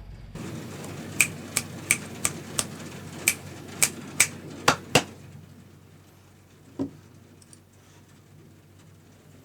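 Single keystrokes on a KBD75v2 mechanical keyboard with lubed Gateron Yellow linear switches: about ten sharp clacks at an uneven pace over a few seconds, then one duller knock.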